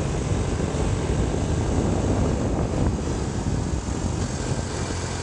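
Wind buffeting a moving camera's microphone over a steady low rumble of travel, with no distinct motor tone.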